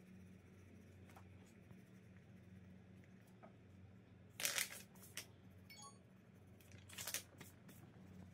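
Near silence with a faint low hum, broken twice by short rustles of paper sheets being shifted on a table, about four and a half and seven seconds in.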